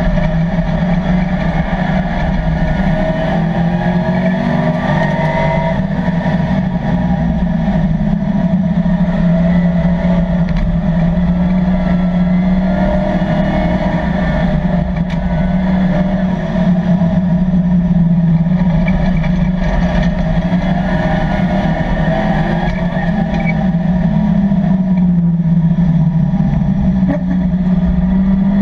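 LS3 V8 of a 1987 Chevrolet Camaro race car, heard from inside the cockpit while racing. It runs hard, its pitch rising and falling with acceleration, braking and gear changes.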